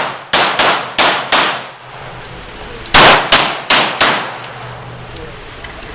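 Handgun shots fired in quick strings, each shot echoing off the walls of an indoor range: four shots in about a second, then a pause of about a second and a half, then four more.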